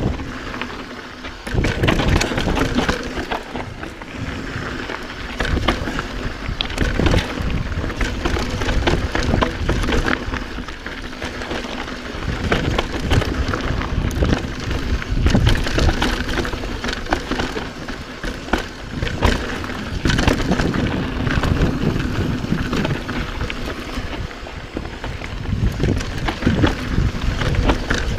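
Mountain bike riding down rough dirt singletrack: tyres rumbling over dirt and roots, with a steady stream of rattles and knocks from the bike.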